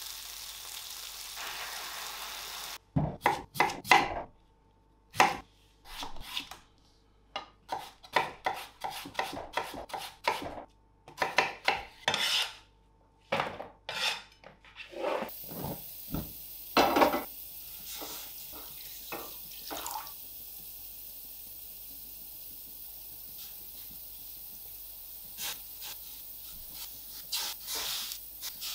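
Kitchen sounds: a run of sharp, uneven chopping strokes on a wooden board as raw potatoes are cut into wedges, followed by a steady hiss from a pan on a lit gas burner, with a few light clinks near the end as potato wedges are set into the water-filled stainless steel pan.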